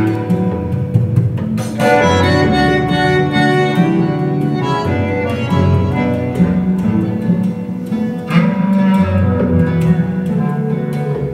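Music from a 45 RPM vinyl LP spinning on a TechDAS Air Force One turntable, played back over AudioMachina Maestro GSE loudspeakers.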